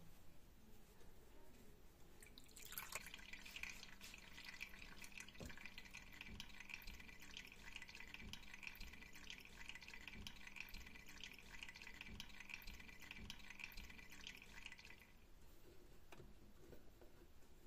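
Whey trickling and dripping from a hanging cheesecloth bag of fresh curds into a metal pot: a faint, fine, rapid patter that starts a few seconds in and stops shortly before the end.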